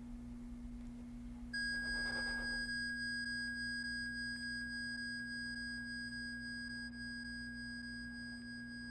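A single high, pure bell-like tone, like a chime or tuning fork, sounds suddenly about one and a half seconds in and rings on, slowly fading. A steady low hum runs underneath.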